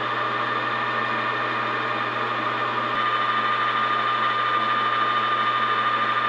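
Metal lathe running, its cutting tool facing the end of a spinning brass bar: a steady machine hum with a constant high whine.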